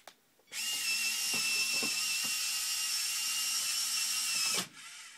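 Vex minibot's small electric motors whining steadily through a high 5-to-1 gear reduction as the robot climbs the pole. The whine starts about half a second in and cuts off suddenly near the end.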